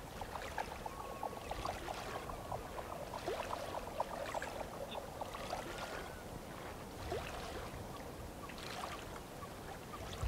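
Quiet lakeside ambience: small water sounds lapping and trickling at the shore, with a few faint high chirps.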